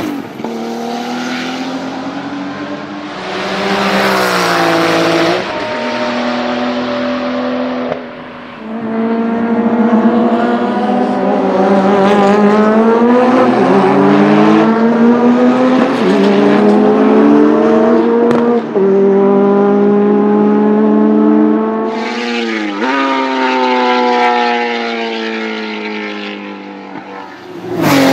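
Turbocharged flat-six engine of a Porsche 935 race car, pulling hard through the gears: the pitch climbs and drops sharply again and again at each shift, with a couple of lifts off the throttle, and a sudden loud burst near the end.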